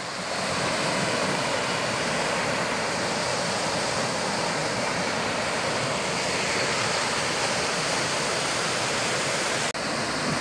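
Shallow, fast river rushing over rocks in small rapids: a steady, even sound of white water, broken for an instant near the end.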